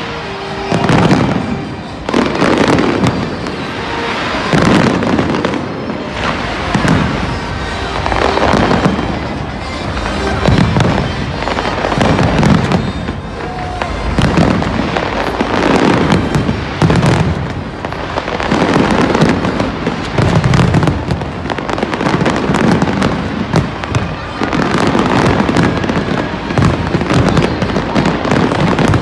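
Large aerial fireworks display: shells bursting one after another, booms and crackle coming in surges about every couple of seconds.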